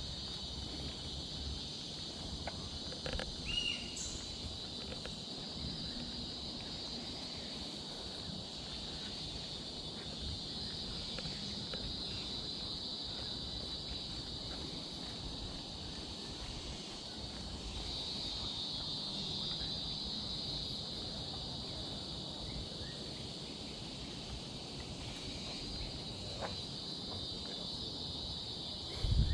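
Steady, high-pitched forest insect chorus, swelling a little about two-thirds through, with a few faint clicks and a short chirp about three seconds in and a brief knock near the end.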